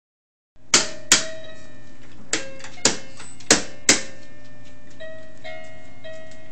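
A baby activity center's plastic toy tray being banged: six sharp knocks in the first four seconds, several followed by a short ringing electronic toy tone. Near the end a few electronic toy notes play without knocks.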